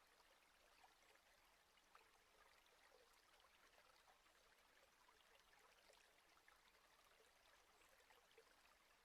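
Near silence: a faint, even hiss with tiny scattered crackles.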